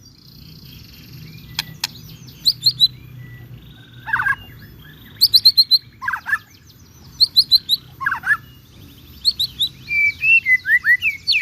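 White-rumped shama (murai batu) singing: short phrases of quick whistled notes and downward slurs, repeated every second or two. Two sharp clicks sound about two seconds in.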